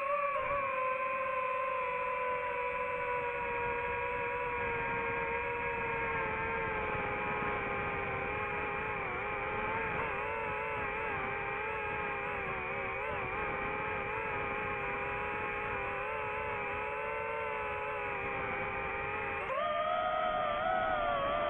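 Quadcopter drone's motors and propellers whining in flight: a steady whine whose pitch sags slowly and wavers, then jumps up sharply near the end as the motors speed up.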